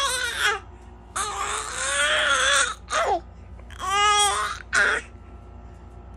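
A baby's loud, high-pitched cry-like squeals in several bursts, the longest lasting over a second, stopping about five seconds in.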